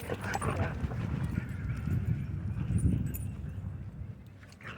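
Dogs scuffling and running in play: a rapid, irregular patter of low thuds, loudest about three seconds in, then fading.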